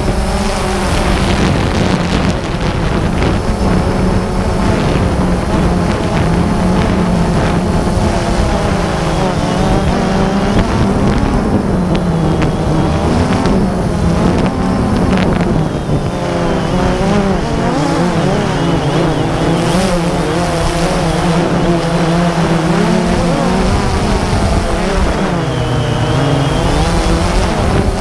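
Multirotor drone's motors and propellers buzzing steadily, the pitch wavering up and down as the motors change speed.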